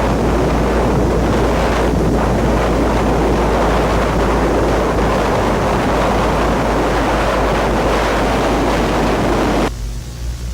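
Loud, steady rushing wind noise of a storm with a deep steady rumble underneath, cutting off suddenly near the end.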